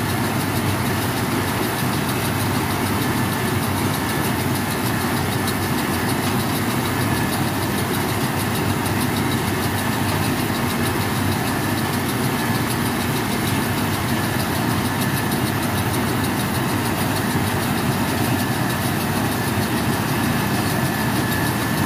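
Tractor engine running steadily under load, driving a Hesston 745 round baler as it picks up a windrow of hay, the baler's pickup and belts adding a continuous mechanical rattle. A faint steady high whine runs through it.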